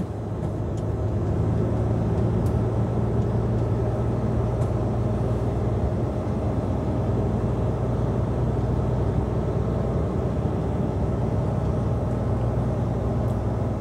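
Lorry cab interior while driving: the truck's diesel engine running with road noise, a steady low drone that builds a little over the first couple of seconds, then holds even.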